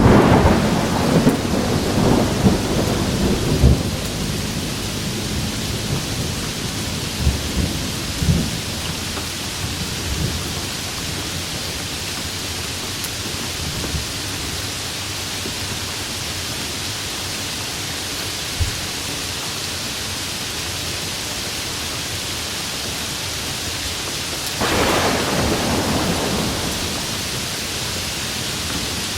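Steady heavy rain with thunder: a thunderclap crackles and rumbles over the first few seconds, and another sudden clap comes in near the end.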